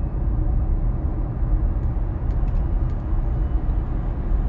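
Road and tyre noise heard inside the cabin of a moving Tesla Model Y electric car: a steady low rumble with no engine sound.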